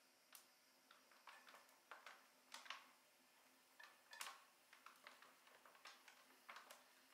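Wire loop trimming tool cutting into leather-hard white clay on a turning potter's wheel: faint, irregular short scrapes and ticks as the tool bites and lifts, over a faint steady hum.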